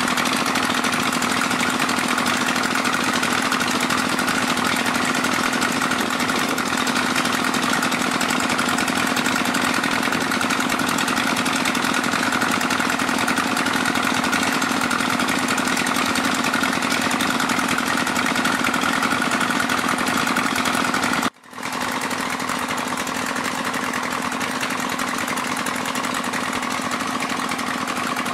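Small petrol engine of an alkon pump running steadily under load while pumping sand and water. The drone drops out for a split second about two-thirds of the way through, then carries on slightly quieter.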